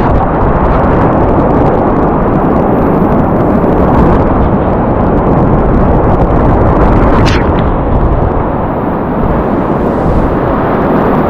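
Loud, steady roar of big whitewater rapids rushing and crashing around a kayak, with one brief sharp splash about seven seconds in.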